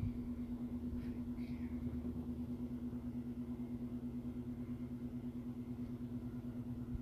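A steady mechanical hum holding one pitch, over a low, rapidly fluttering rumble.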